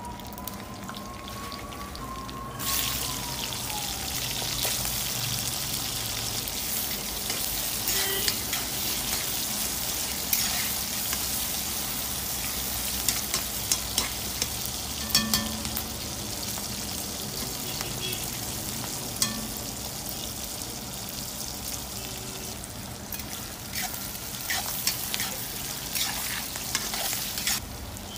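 Sliced onions and green chillies frying in hot oil in a cast-iron pot. A sudden loud sizzle starts a couple of seconds in as they go into the oil, then steady frying goes on with the clicks and scrapes of a metal spatula stirring against the pot.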